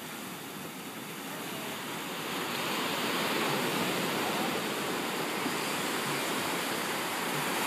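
Ocean surf breaking and washing up a sandy shore, a steady rushing that swells over the first couple of seconds and then holds.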